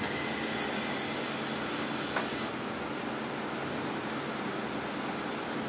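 CNC lathe running with a steady mechanical hum. Over it a high hiss of spray runs for the first two and a half seconds and then cuts off, with a single short click about two seconds in.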